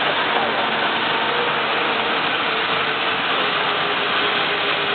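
Automatic tank welding machine running at the seam: a steady, dense crackling noise with a faint hum underneath.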